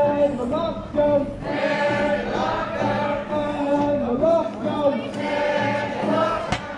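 A crowd of people singing together in unison, with long held notes. There is a brief knock near the end.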